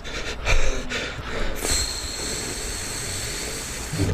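Beatboxed mouth sound effects: a few quick sharp clicks, then from about a second and a half in a long, steady, high-pitched hiss with a thin whistle in it, squealing like train wheels.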